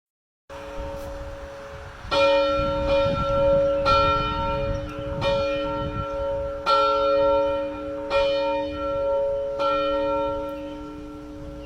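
A single church bell rung in a steady rhythm, struck about every one and a half seconds from about two seconds in. Each stroke's ringing hum carries on between strokes.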